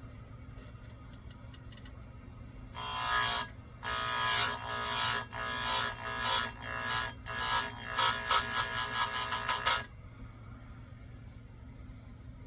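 Electric chainsaw-chain grinder's wheel grinding the chain's cutters: a high-pitched screech in a series of about a dozen short passes, quickening near the end, over a faint steady hum.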